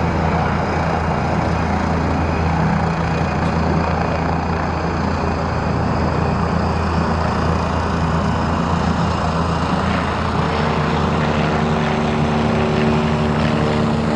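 Propeller aircraft engine running steadily and loudly, with a higher set of engine tones joining about ten seconds in.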